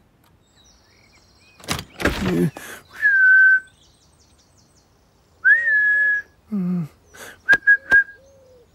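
A man whistling to call a cat: a short whistle that dips slightly, then a longer one that rises and holds, then a few quick short whistles near the end. A noisy rustle with knocks comes about two seconds in, and there is a brief low voiced sound and two sharp clicks between the whistles.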